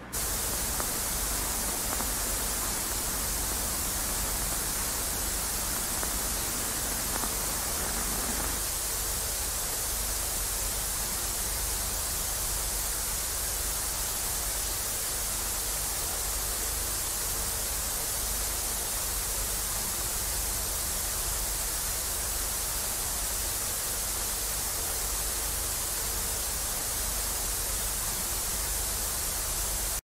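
Television static: a steady, even hiss, strongest in the high treble, that cuts in suddenly at the start and holds without change.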